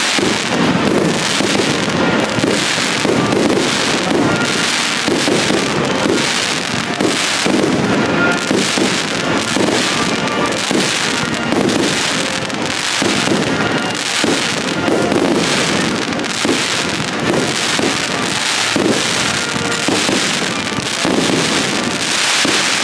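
Aerial fireworks display, shells bursting one after another in a continuous, loud barrage of bangs.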